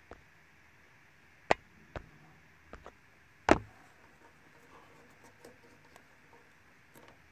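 Hands handling loose wiring and heat-shrink tubing: a few scattered sharp clicks and taps, the loudest a knock about three and a half seconds in, another about a second and a half in.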